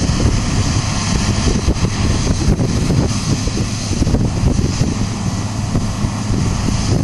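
Heavy farm machinery running steadily under load at corn harvest, a dense engine and machine rumble, with wind buffeting the microphone.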